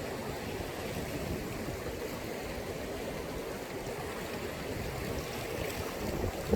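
Sea waves washing onto the shore: a steady, continuous rush of surf.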